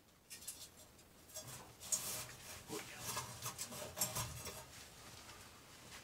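Paper flour sack rustling and crumpling in irregular bursts as it is pulled off the end of a metal flue pipe and bunched closed around a trapped bird.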